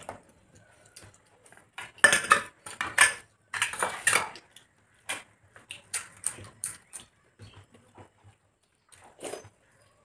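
Steel bowls and plates clinking and clattering in several short clusters, loudest between about two and four seconds in, with a last clink near the end.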